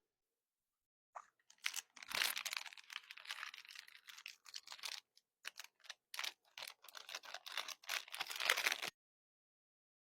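Crystal candy being handled in its packaging: an irregular flurry of crinkling, crackling noises with a few heavier crunches, stopping abruptly about a second before the end.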